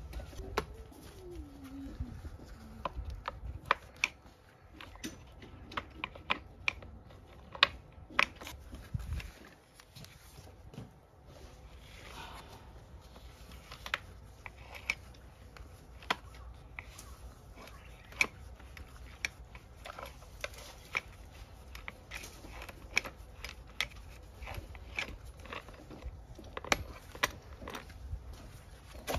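Screwdriver shafts clicking and tapping against the plastic housing of a semi-automatic nylon-cord trimmer head as it is pried apart: irregular sharp clicks and knocks.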